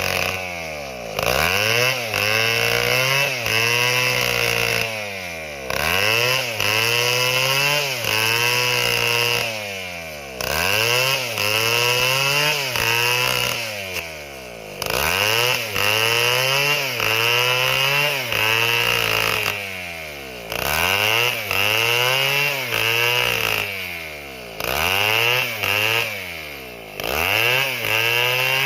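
Large two-stroke chainsaw (Stihl MS 720) cutting wood at full throttle. About every four to five seconds the engine pitch drops and climbs back as the throttle is eased and opened again.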